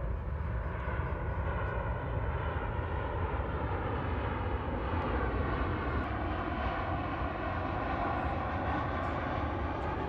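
An airplane flying overhead: a steady rumble that grows a little louder around the middle.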